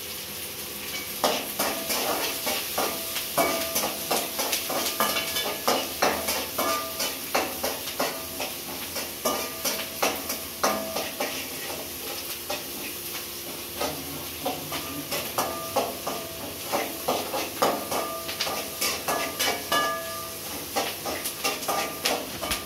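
Long metal spoon scraping and clinking against an aluminium kadai as onions and curry leaves are stirred in hot oil, the strokes irregular, about one to three a second, some leaving a short metallic ring. A steady sizzle of the frying runs underneath.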